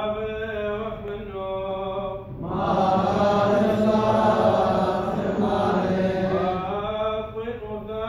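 Liturgical chanting of the Assyrian Church of the East: a lone voice holds long sung notes, then from about two and a half seconds in many voices join in a louder passage, and a single voice carries on again near the end.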